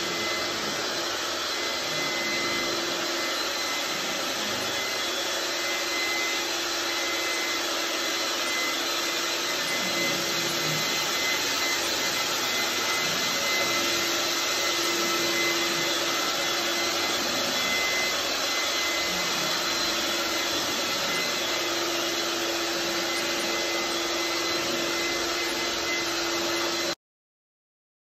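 Shop vac running steadily with a high whine and rushing air, its brush head rubbed over bare drywall to pick up sanding dust before priming. It cuts off suddenly about a second before the end.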